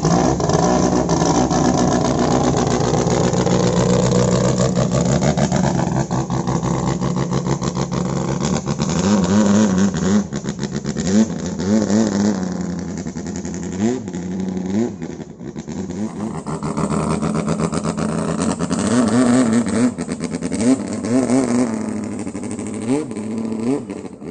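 Racing longtail boat's tuned car engine, open straight exhaust pipes, running loud, then revving up and down again and again as the boat speeds down the canal.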